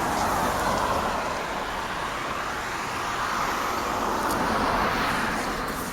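A car driving past on a road: steady tyre and engine rush that swells in and eases off slightly near the end.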